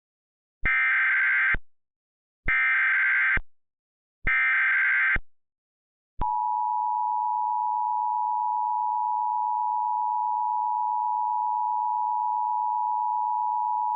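Emergency Alert System signal: three short bursts of warbling SAME header data, then about a second in pause, then the long, steady attention tone, which holds for about eight seconds before the alert message.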